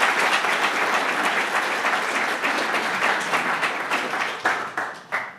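Audience applauding, thinning out near the end with a few last claps before stopping.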